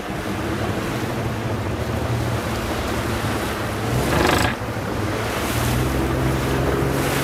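Wind buffeting the microphone and choppy waves rushing past a motor boat, over the steady low hum of its engine. About four seconds in comes a louder rush of water, like a wave splashing against the hull.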